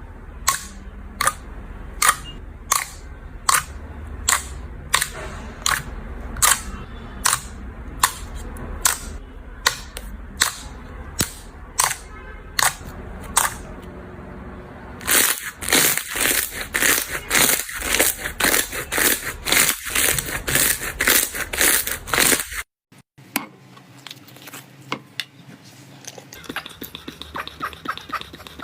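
Bubble slime being pressed and worked, giving sharp popping clicks about twice a second. Just past halfway it turns to a faster, denser crackling that cuts off suddenly, followed by softer, finer crackles.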